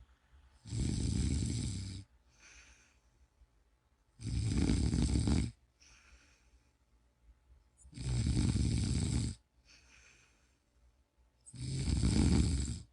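Snoring: four long snores about three and a half to four seconds apart, each lasting over a second, with soft breaths between them.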